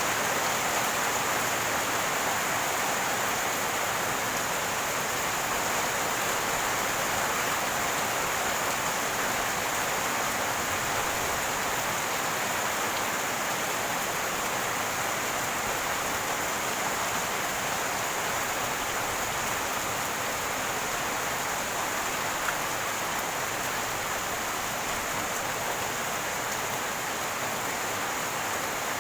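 Rainwater running and gurgling: a steady, unbroken rush of flowing water, with a single small tick about three-quarters of the way through.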